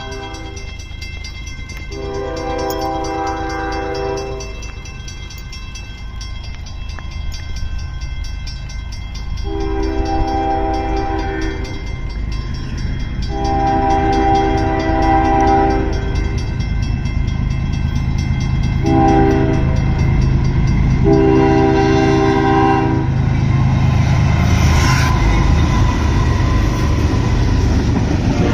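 Diesel locomotive horn sounding the grade-crossing signal as a train approaches: four long blasts with a short one before the last, each louder as the train nears. Over the last few seconds the low rumble of the locomotives passing close by builds up.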